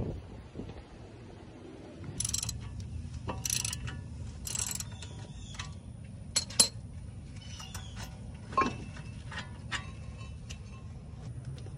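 Metal clinks and short scrapes as a brake caliper bracket is handled and lifted off a front disc rotor, with a sharp double clink just past the middle as the loudest moment, over a low steady rumble.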